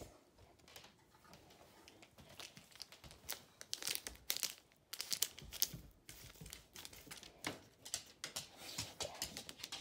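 A crinkly plastic bag being crumpled and torn at, in irregular bursts of sharp crackling that are loudest in the middle.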